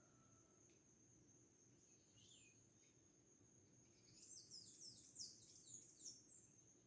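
Small birds chirping faintly, with a quick run of short, falling chirps about four seconds in, over a steady high-pitched drone.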